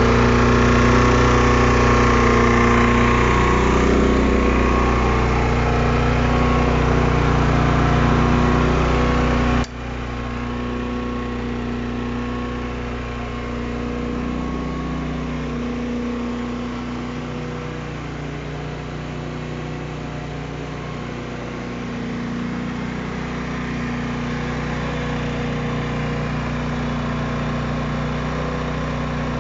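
Geotech-Pro PTGA 9000 inverter generator's 459 cc four-stroke petrol engine running steadily under its silenced casing. About ten seconds in, the sound drops abruptly to a quieter level and carries on.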